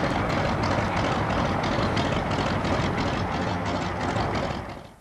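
A steady engine running under a loud wash of outdoor background noise, fading out near the end.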